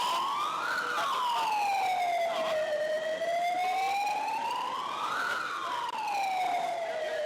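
Emergency vehicle siren wailing, its pitch rising and falling slowly, peaking about a second in and again about five seconds in.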